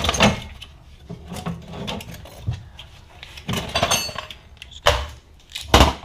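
Metal clanks, knocks and a short rattle as a used rear drum brake assembly is handled on a concrete floor. Two heavy thuds come near the end.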